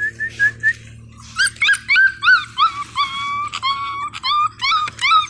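Wolfdog puppy whimpering and crying in high-pitched yips. A few quick short chirps come first, then from about a second and a half in a run of about a dozen rising-and-falling cries, some drawn out into short howl-like wails. This is a puppy learning to howl, crying for its mother.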